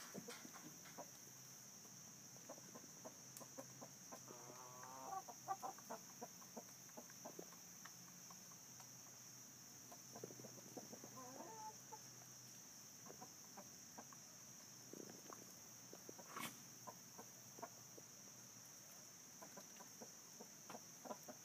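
A flock of chickens clucking faintly, with short clucks scattered throughout and two longer calls about five and eleven seconds in.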